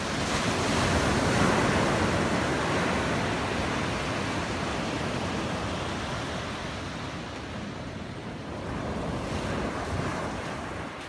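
Ocean surf breaking and washing up a sandy beach: a loud surge about a second in that slowly ebbs, then a second, smaller surge near the end, with some wind on the microphone.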